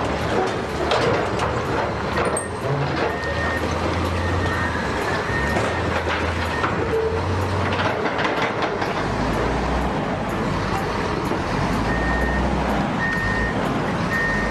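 Heavy construction machinery running, with clanks and knocks in the first half and a reversing alarm beeping at intervals, once a few seconds in and again near the end.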